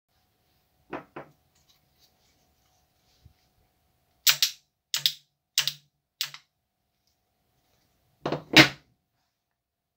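Wooden semi-automatic rubber band gun, a plywood Glock 19 replica, being fired: four sharp clacks of its release mechanism about two-thirds of a second apart. A faint pair of clicks comes about a second in, and a louder pair of clacks near the end.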